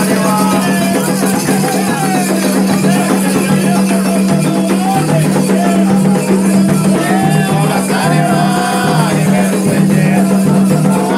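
Candomblé ceremonial song for Xangô: voices singing a wavering melody over steady percussion with a shaken rattle.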